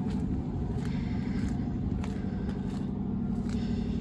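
Steady low drone of a running engine, unchanging throughout.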